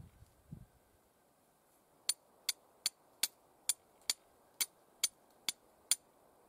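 Flint and steel: a steel striker hit against a flint ten times in a quick, even rhythm, each strike a short, sharp, high click, to throw sparks for lighting a fire.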